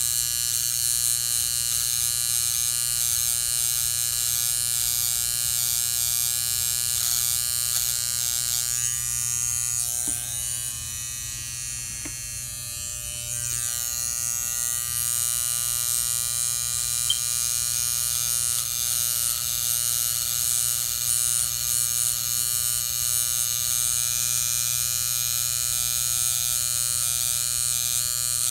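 Electric hair trimmer buzzing steadily as it edges the hairline and temple for a line-up; the buzz drops a little quieter for a few seconds about ten seconds in.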